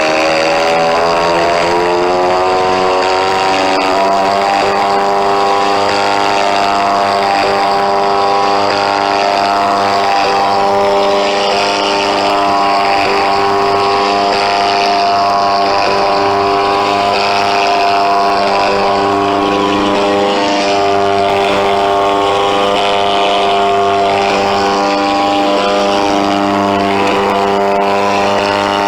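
Simulated Lancaster bomber engine sound from an RC model's onboard scale sound system, played through small wing-mounted speakers. The engine note rises in pitch over the first few seconds as the throttle comes up, then runs steadily.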